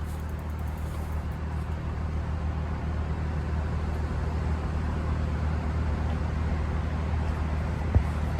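Steady low rumble of road traffic, even throughout, with a single short click about eight seconds in.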